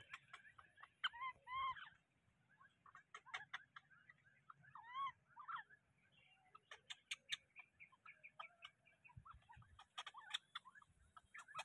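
Faint short animal calls: arched squeaky cries about a second in and again near five seconds in, with scattered short chirps between, over crackling clicks of dry palm fronds.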